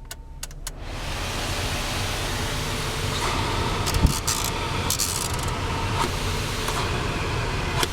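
Car heater and air-conditioning blower fan switched on: its rush of air comes up about a second in and then runs steadily, over the low hum of the idling 3.5-litre V6. A short knock about four seconds in.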